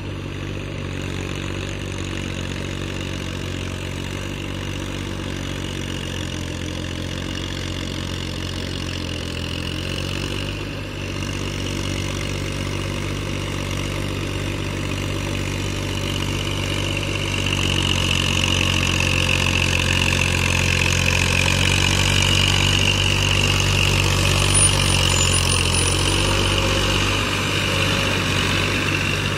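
Diesel farm tractor engine running steadily while pulling a rotary tiller, getting louder about halfway through as the tractor comes closer.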